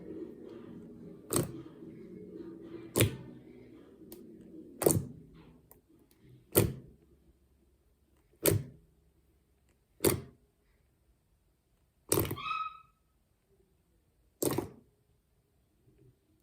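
Slime being worked by hand, giving a sharp pop about every two seconds, eight in all, as trapped air bursts out of it.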